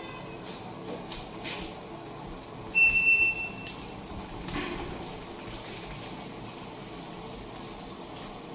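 Stand mixer running steadily, whisking eggs for sponge cake batter. A loud, high electronic beep lasting about a second cuts in about three seconds in.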